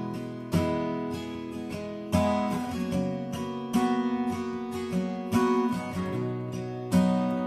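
Instrumental music: acoustic guitar chords strummed about once every second and a half, each left to ring.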